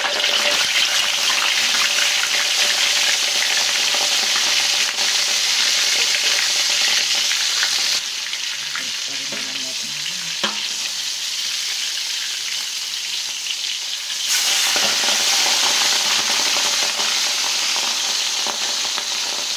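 Whole yellow croaker sizzling as it fries in hot oil in a wok: a steady, loud, crackling hiss. The sizzle eases about eight seconds in and comes back up near fourteen seconds, with a single sharp click around ten seconds.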